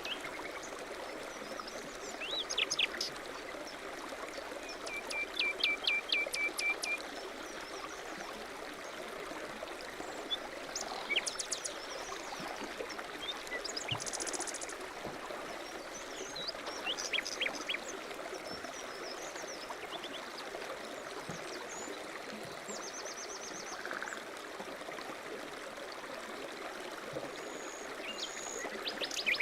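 A stream flowing with a steady rush of water, while small birds chirp on and off above it, including a quick run of repeated notes about five seconds in and a brief high buzzy trill about halfway through.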